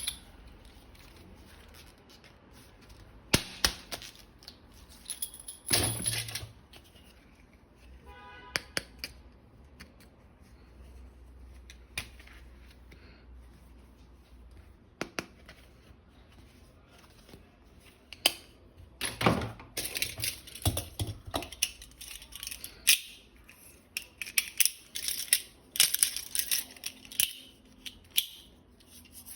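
Clicks, snaps and rattles of a plastic toy gun and its parts being handled, in scattered bursts with a few louder knocks, the clicking busiest in the last third.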